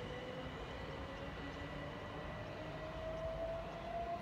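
Southern Class 377 Electrostar electric multiple unit pulling away and accelerating, its traction equipment giving a whine that rises steadily in pitch over a low rumble.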